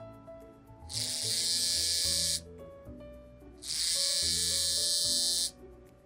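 Small vibration motor of a Morse code device buzzing in two long pulses, Morse dashes: one starting about a second in, the other near the four-second mark and slightly longer, over background music.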